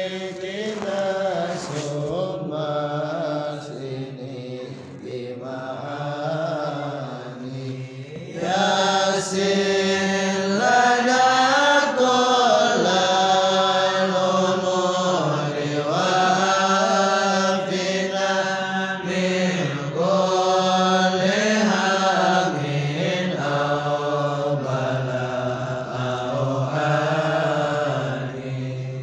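Sholawat, an Islamic devotional chant, sung by a gathering of voices over a steady low hum of voices. It gets louder about eight seconds in.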